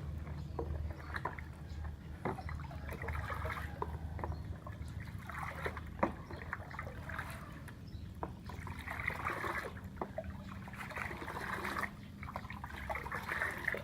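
Water in a container being stirred to dissolve medicine powder into chickens' drinking water: swirling, sloshing liquid that swells and fades in waves, with occasional light knocks of the stirrer against the container.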